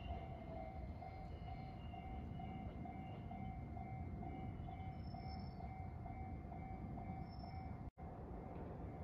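Railway level-crossing warning bell ringing steadily in a quick repeating beat, about three dings a second, over a low background rumble. The sound breaks off briefly near the end.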